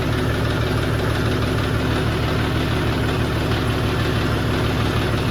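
John Deere 5050D tractor's three-cylinder diesel engine idling steadily.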